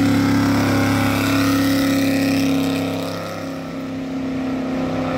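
Carbureted 355 small-block V8 of a mid-engine Chevy S10 running hard at high, steady revs as the truck pulls away, the sound dropping off a little partway through and then picking up again.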